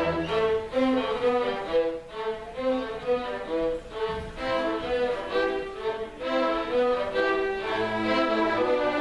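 Bowed string music, led by violin, playing a melody of held notes that change about every half second.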